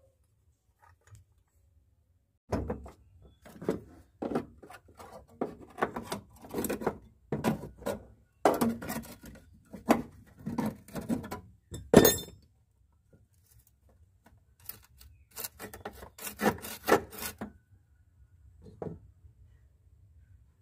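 Rusted sheet metal of a car's body mount being knocked and pried away with a hand tool: irregular knocks and scrapes, with one sharp metallic clank about twelve seconds in.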